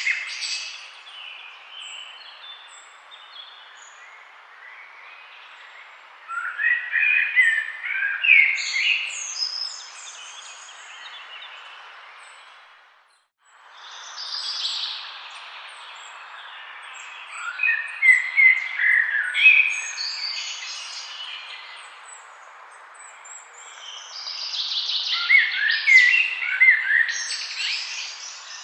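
Forest songbirds singing in bursts of quick, high chirps and warbles, over a steady background hiss. Everything drops out briefly near the middle, then the hiss and song return.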